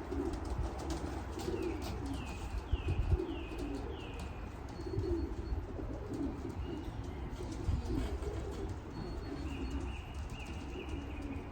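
Racing pigeons cooing repeatedly at the loft. A small songbird chirps over them: four short falling notes a couple of seconds in, and another run of chirps near the end.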